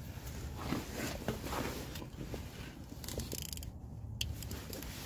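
Scattered small clicks and rustling of hand tools being handled, with no steady rhythm.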